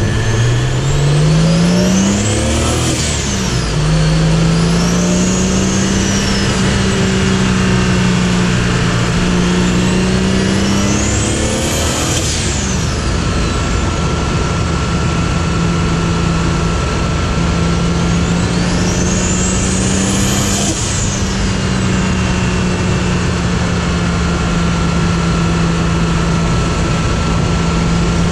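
Cars driving past one after another, about every eight seconds, each pass a high whine rising then falling. Under them runs a steady engine drone that climbs at the start and then holds.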